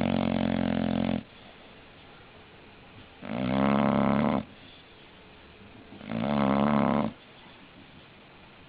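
English bulldog snoring in its sleep: three loud snores about three seconds apart, each lasting about a second. The first is already under way at the start and ends about a second in.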